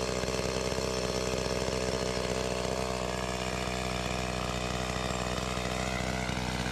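Chainsaw engine running at a steady speed with an even, unbroken pitch, used to cut up storm-fallen trees.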